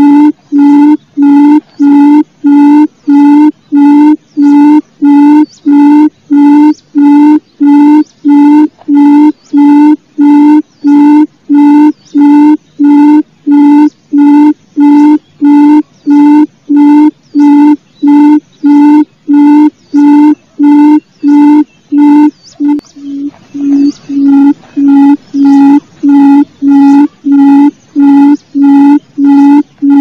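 Barred buttonquail's low hooting call: short, even hoots repeated about three times every two seconds in an unbroken, very regular series. The series falters briefly about 23 seconds in, then goes on.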